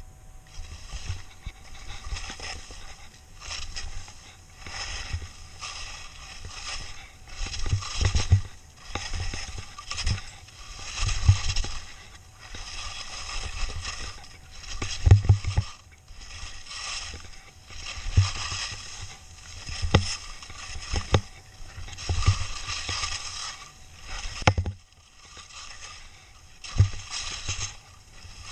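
Downhill skis scraping and hissing over packed snow in a run of linked turns, the sound swelling and fading with each turn every second or two, with sharp low thumps every so often.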